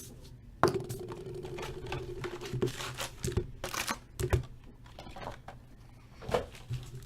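A sealed hockey card hobby box being opened by hand: clicks, scrapes and crinkling of wrapper and cardboard, with a louder scrape or tear about a second in.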